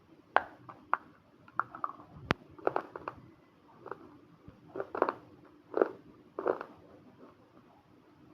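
Pieces of baked red multani mitti (fuller's earth clay) being bitten and chewed: a series of sharp, irregular crunches.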